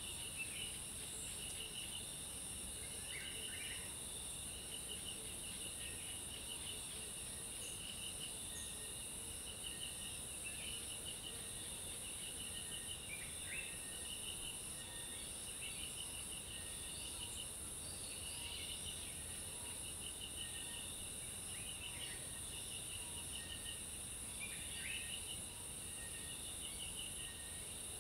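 Insects chirring: a steady high-pitched drone and a lower, rapidly pulsing trill, with several short bird calls now and then.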